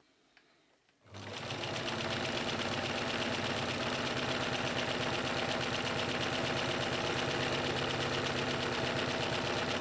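1957 Necchi Supernova Automatica electric sewing machine starting up about a second in and then running fast and steady, stitching a zigzag seam through fabric.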